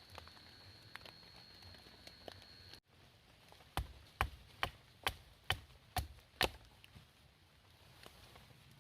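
Seven sharp strikes in a steady rhythm, about two a second: a blade or axe chopping wood. Before them a steady high tone cuts off abruptly.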